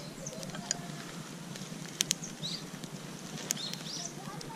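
Split-wood campfire burning and crackling, with a few sharp pops from the wood; birds chirp briefly in the background.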